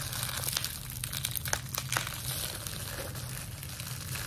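Bubble wrap crinkling and rustling as it is pulled apart and unwrapped by hand, with irregular sharp crackles.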